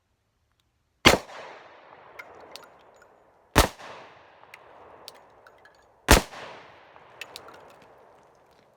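Three shots from a Glock 29 pistol in 10mm Auto, about two and a half seconds apart. Each shot trails off in a long echoing tail, with a few small clicks between the shots.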